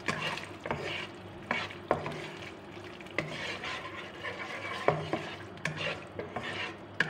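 Chilli spice paste and whole red chillies sizzling in oil in a small non-stick frying pan, stirred with a plastic spatula that scrapes and taps against the pan at irregular moments. The paste is being sautéed until the oil separates from it.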